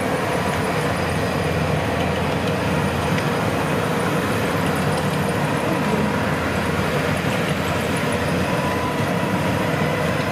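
Kubota DC105X combine harvester running steadily at close range, a constant engine and machinery sound with no let-up.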